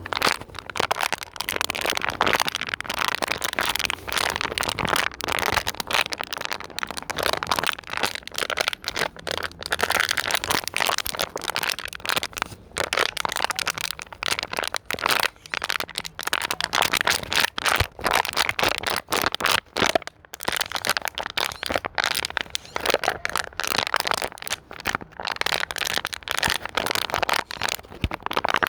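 Plastic bottle being squeezed and crumpled in the hand, a continuous irregular crinkling and cracking of thin plastic with only brief gaps.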